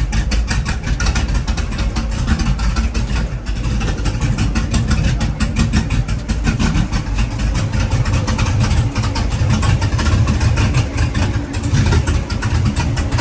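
Cammed LS-swapped V8 in a G-body Monte Carlo running at idle through freshly gasketed headers, a steady, rapid stream of exhaust pulses with a heavy low end.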